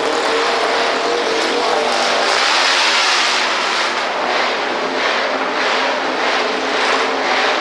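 Racing motorcycle engine running hard at high revs, its pitch rising and falling around the middle.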